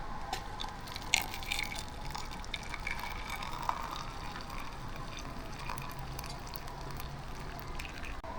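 Water heating for tea in a pot on a camping stove: the burner runs with a steady low hum while the water gives small ticks and pops as it nears the boil.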